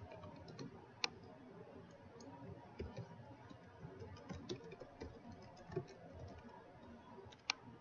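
Faint computer keyboard typing, a scatter of light key taps, with two sharper clicks, one about a second in and one near the end.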